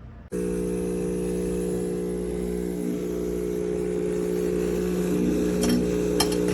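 Electric espresso machine switching on abruptly and running with a steady mechanical hum and a faint high hiss, with a couple of light clinks near the end.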